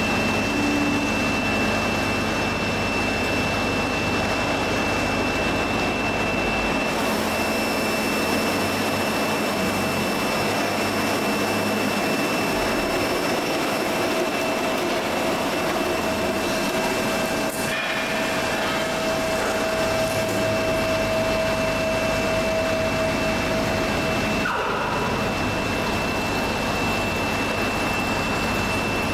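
Fermat WFT 13 CNC bed milling machine drilling with a 21 mm carbide insert drill through its micro indexing milling head, flood coolant spraying at the cut. A steady hiss of spray and machine noise with a constant high whine, and a lower steady hum through the middle.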